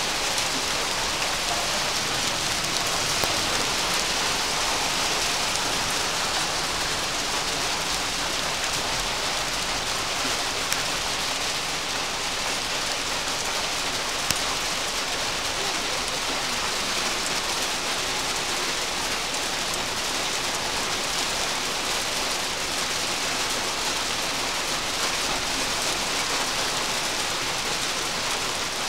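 Heavy hailstorm: a dense, steady hiss of countless small hailstones striking the ground, with an occasional sharper tick.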